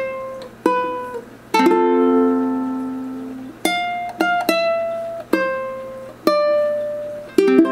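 Ukulele played solo, single plucked notes that each ring out and fade. A fuller strummed chord comes about one and a half seconds in and rings for about two seconds, and another comes near the end.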